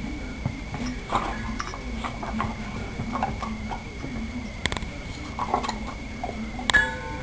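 Weimaraner puppy batting at and pouncing on ice cubes on a carpeted floor: scattered light taps, scuffs and clicks of ice and paws, with a sharper clack a little past halfway and another near the end.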